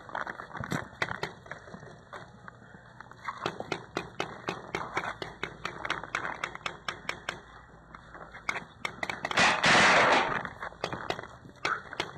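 Paintball markers firing, sharp pops in rapid runs of several a second. About nine and a half seconds in, a loud rushing hiss lasts about a second.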